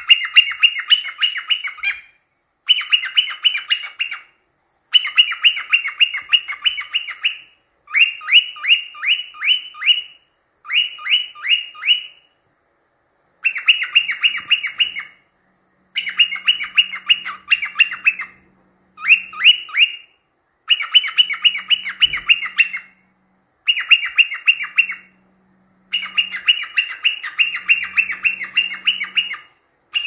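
Cockatiel chirping in repeated bouts of quick, high chirps, about four a second, with short pauses between bouts.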